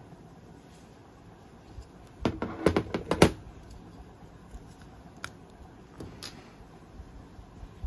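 Sharp plastic clicks and rattles from a manual toy BB gun being handled: a quick run of loud clicks about two seconds in, then a few single clicks.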